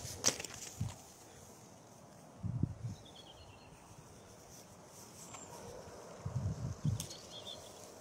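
Low gusts of wind buffeting the phone's microphone, with handling clicks, and a faint descending bird trill about three seconds in.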